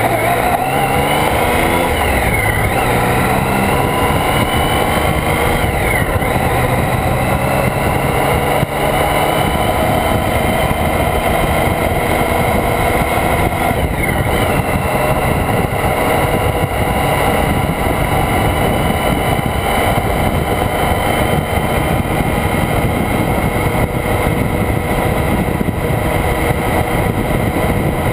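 Motorcycle engine pulling up through the gears, with brief dips in pitch at the shifts about two, six and fourteen seconds in, then running steadily at road speed. Heavy wind rush on the bike-mounted microphone covers much of the engine.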